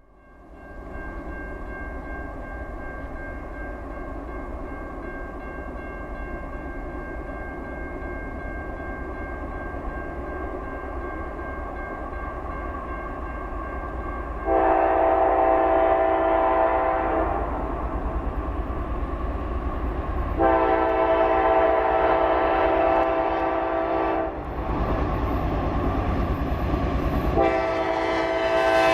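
Approaching CSX freight train's locomotive: a steady rumble that slowly grows louder, then the multi-chime air horn sounds two long blasts about halfway through, and a third begins near the end, in the way an engineer sounds the horn for a grade crossing.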